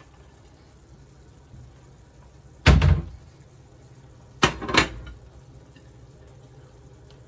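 A cupboard door shutting with a thump, then about two seconds later two quick clacks as a plate is set down on a glass-top stove. A low steady hum sits underneath.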